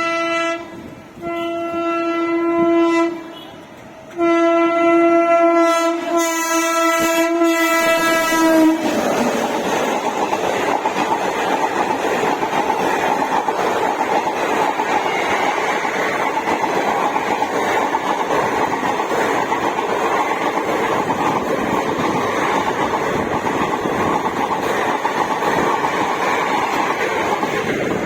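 WAP-7 electric locomotive's horn sounding three times, the third blast long, then the train passing at speed with a steady rumble and wheels clattering over the rail joints.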